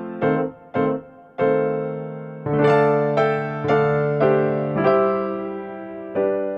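Background music: a piano-type keyboard playing a slow run of struck notes and chords, each ringing and fading before the next.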